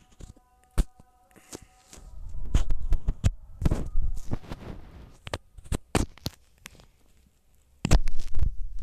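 Irregular knocks, thumps and rustling close to the phone's microphone: handling noise, loudest from about two seconds in and again near the end. Faint steady tones of the game's background music are heard in the first second or so.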